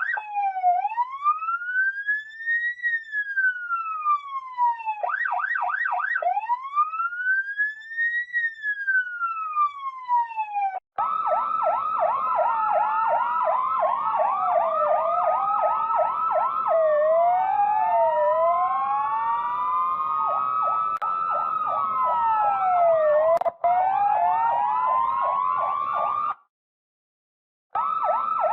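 Electronic police siren wailing, its pitch rising and falling slowly about every five and a half seconds, with a brief fast warble in the middle. From about eleven seconds in, several sirens wail and yelp over one another above a faint low rumble, as in a police chase. The sound cuts off suddenly near the end for about a second and a half, then the sirens resume.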